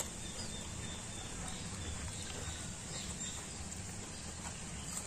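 Steady outdoor background noise with a low rumble, faint high chirps of birds or insects, and a few small ticks of people picking at food.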